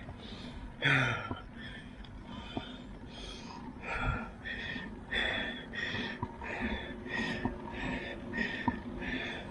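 A cyclist panting hard on an uphill climb, quick noisy breaths in and out about twice a second, one louder gasp about a second in.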